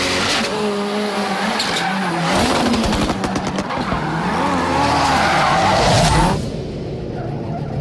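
Ford Fiesta rally car drifting: the engine revs up and down while the tyres squeal and skid. A quick run of crackles comes about two and a half seconds in. Near the end the tyre noise cuts off suddenly, leaving the engine running.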